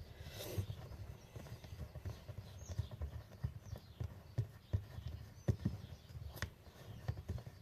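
Irregular small clicks and knocks of a replacement clamp lever being fitted onto a water-fed window-cleaning pole's clamp.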